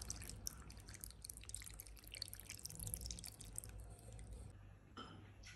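Chicken soup broth poured into a bowl of cooked chicken pieces: a faint patter of liquid splashing and dripping, stopping about four and a half seconds in.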